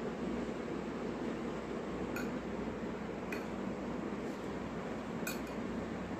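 Metal spoon clinking against a glass mixing bowl three times, about two, three and five seconds in, over a steady background hiss.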